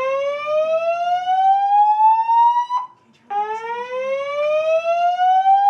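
Fire alarm evacuation tone in a slow rising whoop. Each sweep climbs steadily for about three and a half seconds and then cuts off abruptly. A first sweep ends about three seconds in, and a second begins half a second later. It is the evacuation signal that alternates with the recorded order to take the stairs and leave the building.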